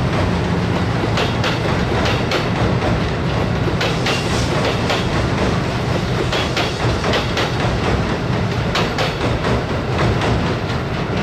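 Train wheels clacking over rail joints in a run of sharp clicks, over a steady rolling rumble.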